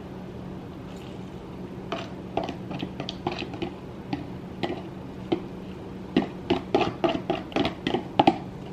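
A metal fork tapping and scraping against a plastic food container as leftover fish and sauce are worked out onto a plate. It is a run of short clicks and taps that starts about two seconds in and grows busier near the end.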